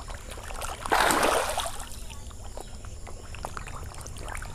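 Pangasius catfish splashing at the water surface as they take floating feed pellets: one larger splash about a second in, with smaller pops and splashes scattered around it.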